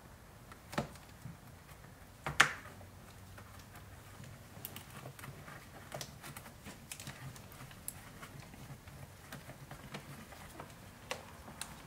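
Scattered light clicks and taps of a trim tool pressing a dash cam wire into the gap between the headliner and the windshield, with a sharper knock about two and a half seconds in and a run of small ticks in the middle, over a faint low hum.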